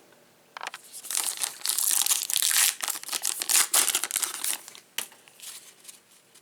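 Trading card packaging being torn open, crinkling and tearing for about four seconds, then a single sharp click about five seconds in.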